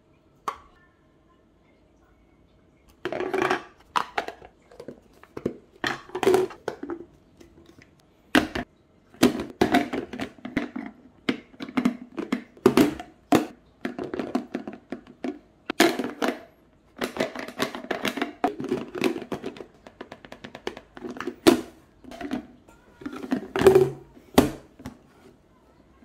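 Clear plastic Silicook food-storage containers and lids being handled and stacked: irregular clacks and knocks of hard plastic against plastic, coming in clusters after the first few seconds.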